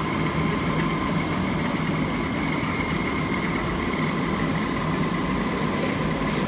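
Pillar drill motor running steadily: a constant hum with a steady whine, no change in pitch or level.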